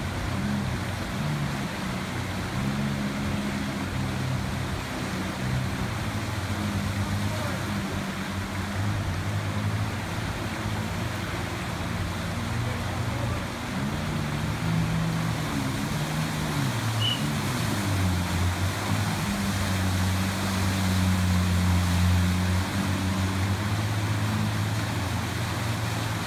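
Rescue personal watercraft's engine revving up and down as the rider works the throttle, over the rush of fast white water.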